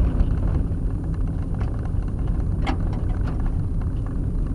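Vehicle driving on a gravel dirt road, heard from inside the cabin: a steady low rumble of tyres and engine. A few sharp clicks sound over it, the loudest about two and a half seconds in.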